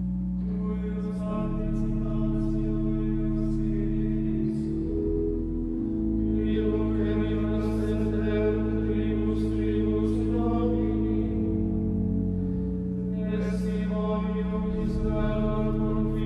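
Choir pipe organ holding sustained chords under men's voices singing Gregorian chant, the chords changing about six and again about thirteen seconds in.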